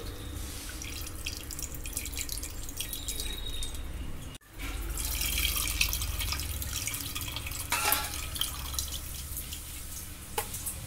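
Tamarind water poured from a steel bowl through the fingers into a pot of fish curry, splashing and dripping steadily, with a low hum underneath. The sound drops out briefly about four and a half seconds in.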